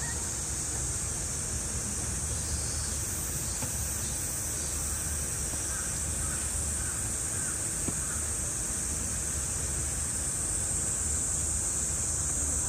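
Steady, high-pitched chorus of summer cicadas over a low outdoor rumble, with a few faint wavering calls in the middle.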